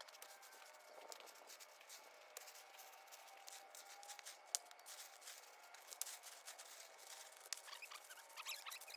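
Near silence, with faint scattered clicks and ticks and one sharper tick about halfway through.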